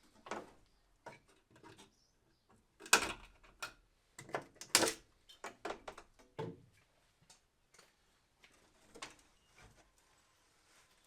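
A run of irregular knocks and clunks, the loudest two about three and five seconds in.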